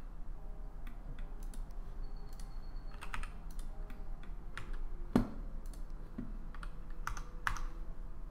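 Computer keyboard keystrokes, scattered and a few at a time, with one sharper key press about five seconds in, over a faint low steady hum.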